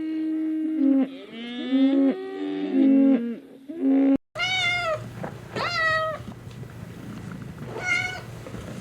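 Cats meowing: many overlapping calls, some held steady, then after a brief break several separate meows that rise and fall.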